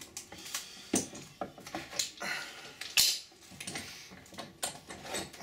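Metal bar clamps being unscrewed and lifted off a clamped mould board: a string of sharp metallic clicks, knocks and clatters, loudest about a second in and again at three seconds.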